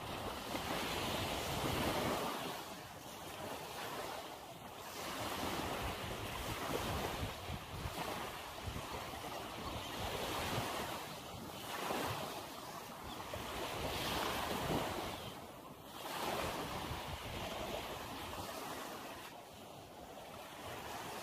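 Small waves lapping and washing up on a sandy shore, the surf swelling and fading every few seconds, with wind buffeting the microphone.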